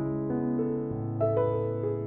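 Background keyboard music: a slow melody with piano-like notes sounding one after another, a new note about every half second.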